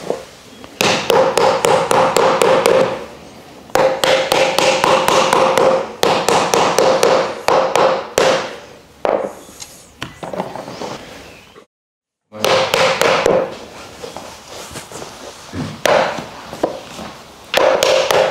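A mallet knocking wooden shelf slats into place in quick runs of rapid taps, with pauses between the runs. The sound cuts out completely for a moment about two-thirds of the way through.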